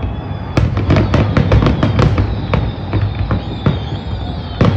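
Fireworks bursting in quick succession: a dense string of sharp bangs, several a second, over a steady low rumble.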